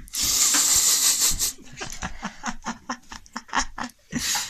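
A person laughing: a loud breathy burst, then a run of short rapid laughs, and another breathy burst near the end.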